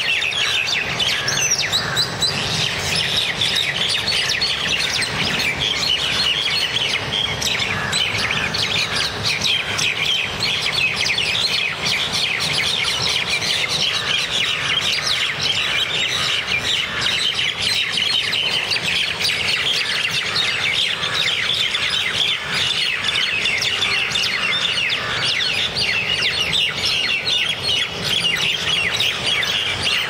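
Common mynas fighting on the ground, giving a continuous stream of rapid, overlapping high calls and squawks.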